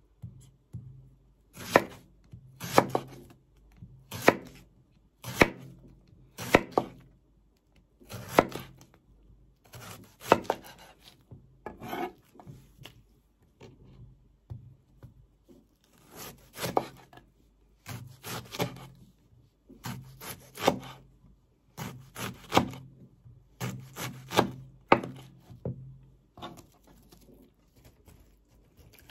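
Kitchen knife cutting banana blossom on a wooden cutting board: sharp cuts, each landing with a dull knock on the board, about one a second and sometimes in quick pairs, with a pause about halfway through.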